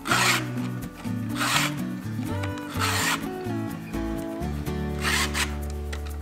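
Hand file in a file guide rasping across chainsaw chain cutters: four short strokes as the dulled chain is sharpened by hand, over background music.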